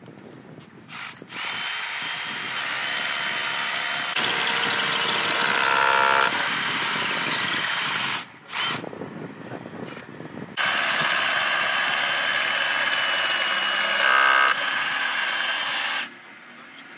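Cordless drill running in long steady stretches with a high whine, working on a wooden-slat bin. It runs from about a second in to about eight seconds, gives a short burst, then runs again from about ten and a half seconds until it stops near the end.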